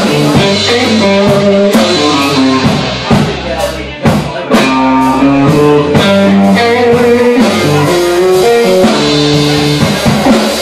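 Live blues band playing: electric guitar lines over a drum kit and a second guitar, in a slow blues.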